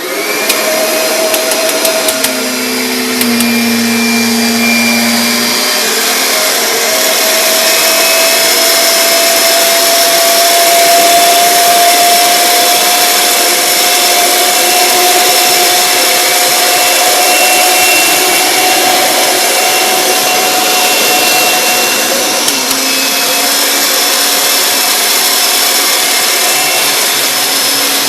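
Kirby Sentria 2 upright vacuum cleaner switched on at the start and running steadily, a loud rush of air with a motor whine that creeps slightly higher in pitch.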